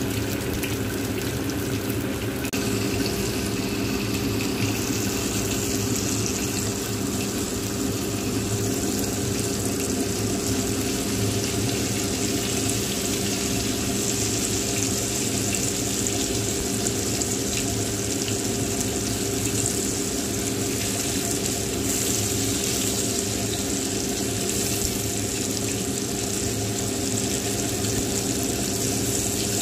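Battered chicken pieces deep-frying in hot oil in a wok, a steady sizzling hiss that grows brighter a few seconds in. A steady low hum runs underneath.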